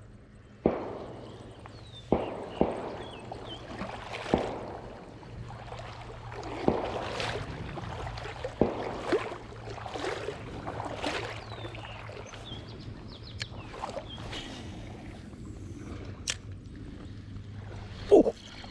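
Repeated water splashes, about ten sharp ones at uneven intervals and the loudest near the end, over a steady wash of moving river water.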